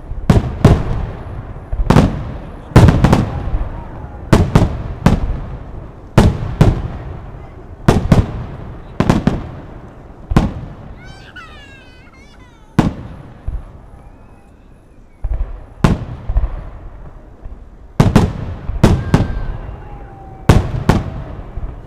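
Fireworks display: aerial shells bursting one after another with sharp, loud bangs, often in quick pairs, each trailing off in a rumbling echo. The bursts pause for a few seconds about halfway through, then resume.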